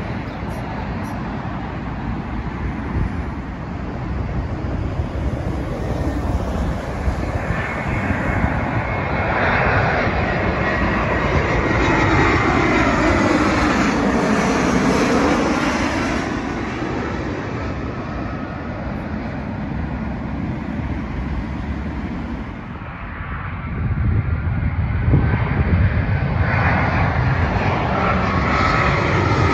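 Twin-engine jet airliner on final approach passing low overhead: its engine whine grows louder, then falls in pitch as it goes by. Near the end the next arriving airliner is heard approaching and getting louder.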